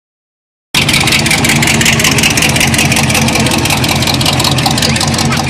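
Hot rod pickup truck's engine idling loudly, with a steady, rapid exhaust pulse.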